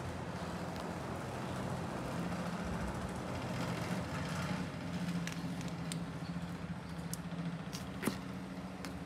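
A steady low mechanical hum, like a motor running, with a few small sharp clicks in the second half.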